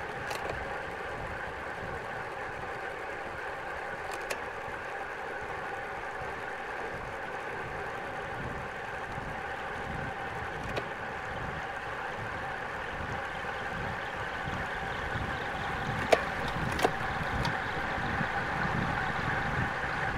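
Rushing wind and tyre hum on a road bike descending at speed, growing louder and deeper over the last few seconds. A few sharp clicks come through, the two loudest close together near the end.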